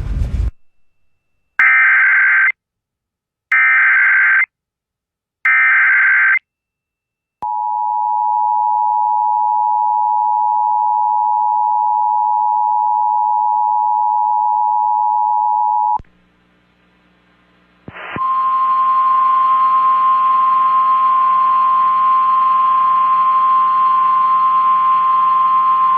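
Emergency Alert System activation: three short bursts of the SAME digital header, about two seconds apart, followed by the steady two-tone attention signal for about eight seconds. After a two-second gap, a second steady alert tone plays over hiss and hum for about nine seconds.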